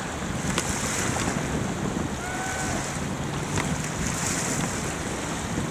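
Wind buffeting the microphone over a steady wash of choppy water, with a faint short whistle-like tone about two seconds in.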